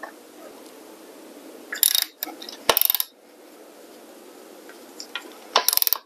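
Socket ratchet wrench clicking in short bursts of metallic ticks, about three times, as the 14 mm bolt holding a bicycle crank arm is tightened.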